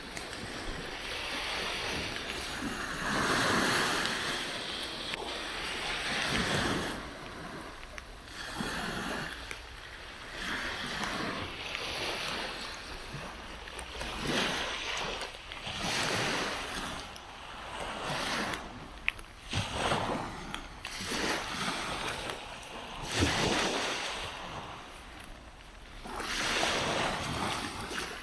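Small waves breaking and washing up a sandy beach, the surf swelling and ebbing in repeated washes every couple of seconds.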